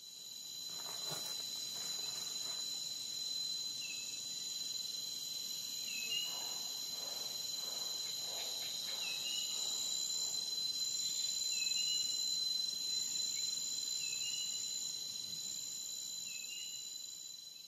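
Insects chirping in a steady, high-pitched chorus, with a short lower chirp repeating every two to three seconds. The sound fades out near the end.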